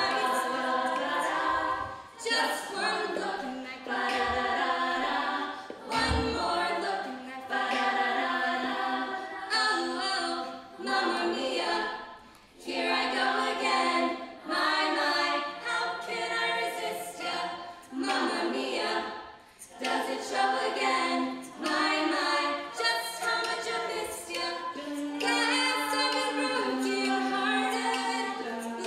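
All-female a cappella group singing: a lead voice over the group's backing voices in harmony, with no instruments, phrase after phrase with short breaths between.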